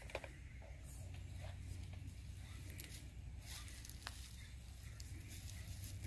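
Quiet outdoor background: a steady low rumble with scattered light clicks and snaps and faint voices.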